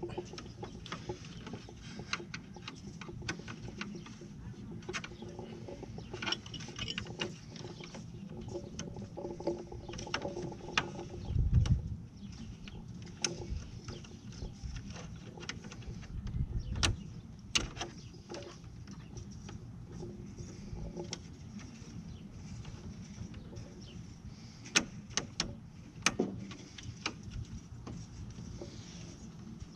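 Scattered small clicks and knocks of hands working plastic clips and fittings in a 2000 Toyota 4Runner's headlight opening, with two heavier dull thumps about a third and halfway through and a few sharp clicks near the end.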